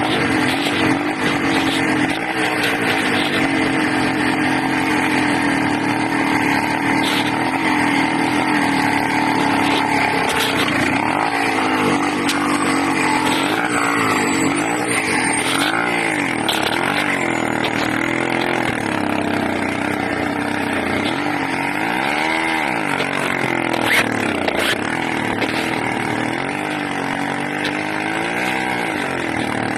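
Small 80cc engine running loud and unsteady, its pitch sagging and picking up again several times. The owner blames the racing on an air leak between the carburetor and the intake manifold.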